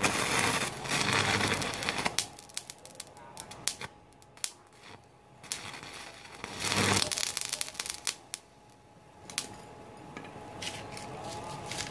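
Stick-welding arc from a Daisung ARC200-MOS inverter welder with a 3.5 mm electrode at the 110 A setting, crackling and spitting in bursts. It is loudest over the first two seconds and again about seven seconds in, with scattered sharp pops between.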